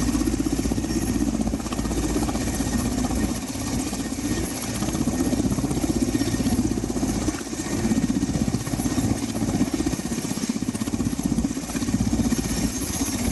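Mi-17 helicopter running, a steady twin-turbine sound with a fast, even throb of the rotors that swells and eases a little.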